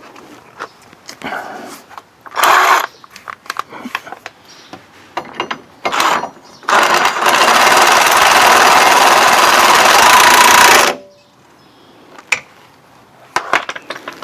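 A power tool running in one steady burst of about four seconds, after scattered clinks and clicks of tools and hardware.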